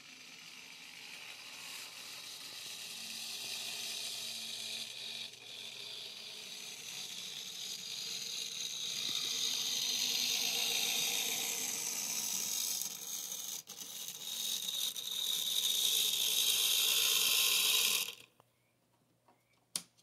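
Motor and gear drive of a brass PFM three-truck Class B Shay model locomotive whirring as it runs along the track, growing louder as it comes closer, then stopping abruptly near the end, followed by a single sharp click. The locomotive still needs cleaning and lubricating.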